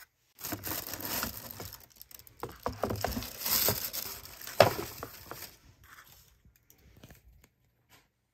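Plastic and paper wrapping crinkling and rustling as shoes are unpacked from a cardboard shoebox, with a sharp knock about four and a half seconds in. The rustling dies away over the last two seconds.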